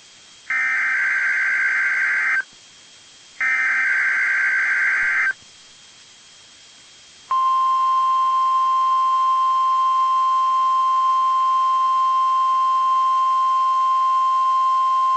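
NOAA Weather Radio Emergency Alert System weekly test. First, two buzzy SAME digital header bursts of nearly two seconds each, a second apart. Then, after a two-second pause, the steady 1050 Hz warning alarm tone begins about seven seconds in and holds.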